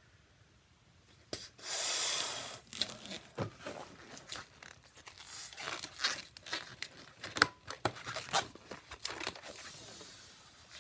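Latex 260 twisting balloon being blown up with a brief rush of air about two seconds in, then handled: a run of rubbery squeaks, rubs and crinkly clicks from the latex, with one sharp squeak midway.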